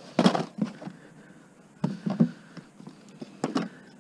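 Scattered knocks and clunks from curbside junk being handled and moved about, about six short impacts, the loudest near the start.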